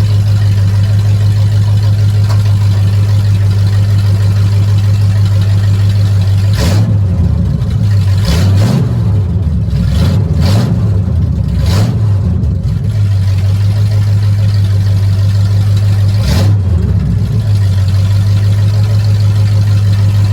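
A truck engine running loud on open long-tube headers with no exhaust system behind them, idling steadily with a deep even beat. About a third of the way in it is blipped up and down several times in quick succession, then once more a few seconds later, before settling back to idle.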